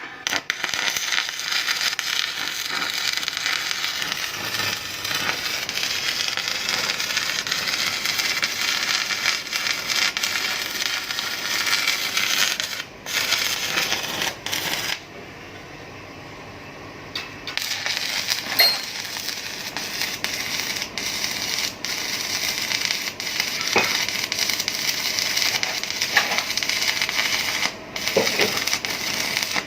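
FFC-45 steel disk mill grinding hard TSP fertilizer granules: a dense, hissy crackle with scattered sharp clicks. It drops away for about two seconds midway.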